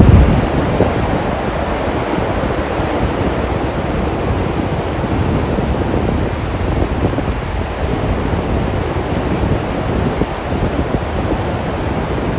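Rheinfall waterfall: a steady, loud roar of falling water, with a low rumble of wind on the microphone right at the start.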